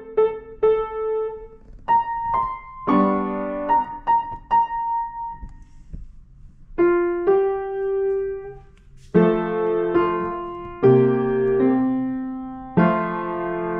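Upright piano being played: short phrases of notes and chords, a pause about six seconds in, then several strongly struck chords that ring and fade.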